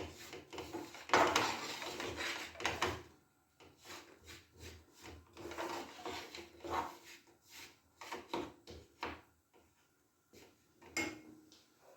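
A spoon scraping and stirring in a pan, mixing jaggery with honey, turmeric and black salt, in irregular strokes. The scraping is thickest for the first few seconds, then comes in sparser strokes.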